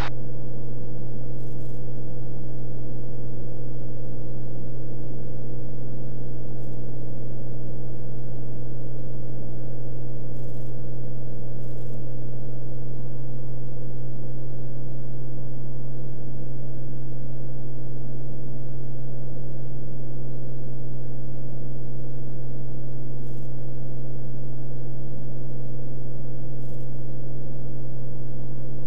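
Steady drone of a Beechcraft Bonanza F33's six-cylinder Continental IO-520 engine and two-blade propeller in flight, heard from inside the cabin. It is even and unchanging, with a deep hum at its core.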